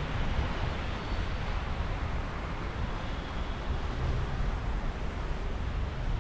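Steady road traffic noise: passing vehicles keeping up a continuous low rumble with tyre hiss.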